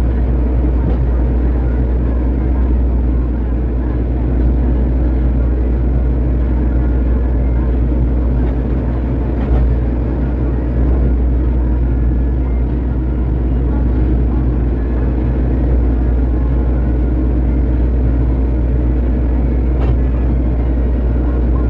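Excavator's diesel engine running steadily while it grades dirt, a constant low drone, with two brief knocks about ten and twenty seconds in.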